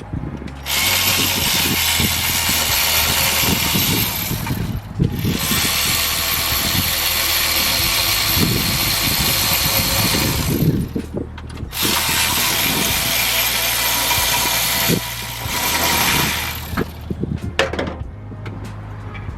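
A power tool running in three long runs of several seconds each, with short pauses between, as bolts come out of the engine's front bracket.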